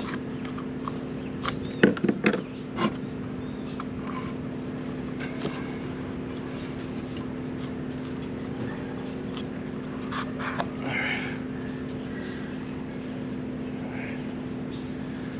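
Knocks, clicks and scrapes of hands working a blower wheel loose and pulling it off the fan motor shaft of a Coleman Mach rooftop RV air conditioner, with a few sharp knocks about two seconds in the loudest. A steady low hum runs underneath.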